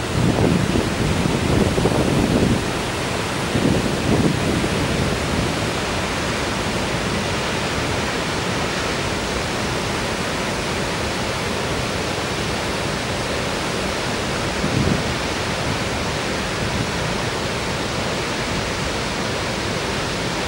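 The waterfall of Shōmyō Falls, a steady dense rush of falling water. Low wind buffets the microphone in the first few seconds and again briefly around the middle.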